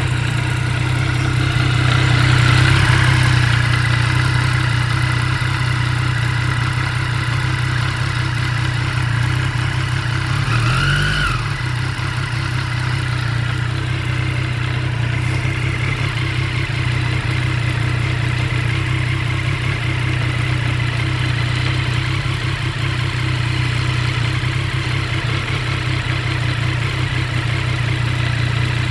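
Triumph Street Triple RS 765 inline three-cylinder engine idling in neutral with the clutch lever out, carrying the grinding noise that goes away when the lever is pulled; the owner is unsure whether this is normal. The engine note swells briefly twice, a couple of seconds in and again near the middle.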